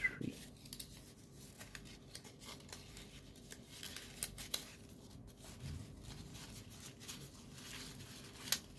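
Folded paper origami units being handled and slotted into one another: soft paper rustling with small crisp clicks and scrapes, a few sharper ticks about four seconds in and again near the end.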